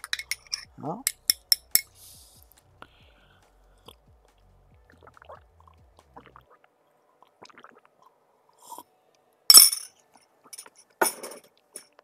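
Someone drinking a cup of coffee: several light clinks of the cup about a second in, then two short, loud noises about a second and a half apart near the end.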